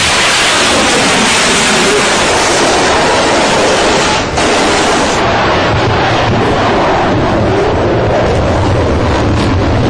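Missile launch: the rocket motor's exhaust noise, a loud, continuous rushing hiss that starts abruptly, dips briefly about four seconds in, then carries on with less hiss and more low rumble.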